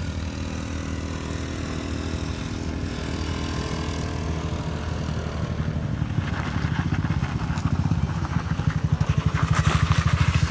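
Engines of a motorbike and a small car running at close range at low speed. Partway through, the engine sound turns into a strong, fast pulsing rumble that grows louder as the car climbs the rough slope close by.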